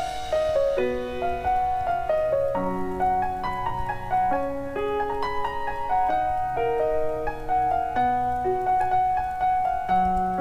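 Background music: a slow piano melody of single held notes.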